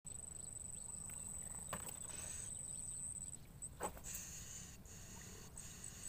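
An insect's high, steady trill that breaks into a fast run of short chirps about halfway through, over a low background rumble. Two sharp clicks, one before the chirping begins and a louder one soon after.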